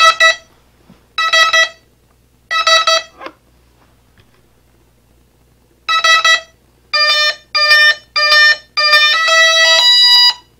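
Brushless outrunner motors beeping through their windings as the eRC speed controls power up with the throttle at full, which starts the throttle-range setup that syncs all the speed controls. Three short beeps about a second apart, then after a pause a quicker run of beeps ending in a longer run of tones that step in pitch.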